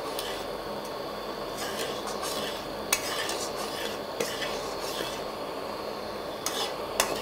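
A flat metal spatula stirring and scraping jaggery syrup in a steel wok, with a few sharp clinks of metal on metal. The syrup bubbles and sizzles steadily underneath as the melted jaggery cooks down to thicken for chikki.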